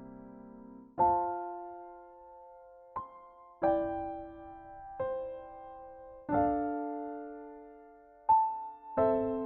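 Background music: slow, gentle piano, chords struck about once a second and left to ring and fade.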